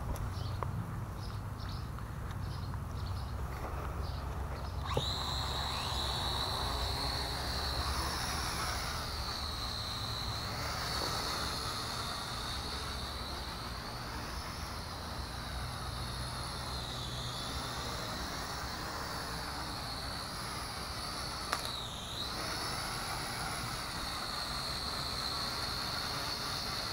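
JJRC H12C toy quadcopter's motors and propellers spinning up about five seconds in, then a steady high whine that rises and falls in pitch as the drone flies about, with a brief dip in pitch near the end.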